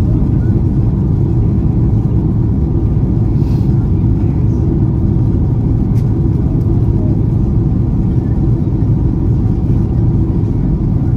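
Steady low rumble of an Airbus A330-223's engines and rushing airflow heard inside the passenger cabin, with a faint click about six seconds in.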